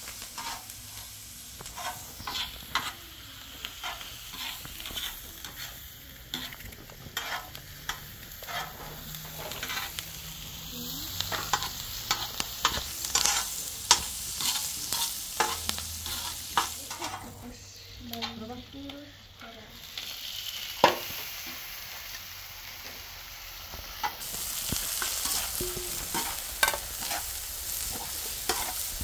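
Chopped vegetables sizzling as they fry on a large black metal griddle, with a flat metal spatula scraping and tapping against the pan in quick, irregular strokes.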